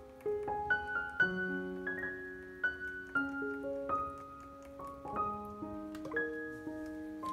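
Background piano music: a slow melody of single notes and chords that ring on and overlap.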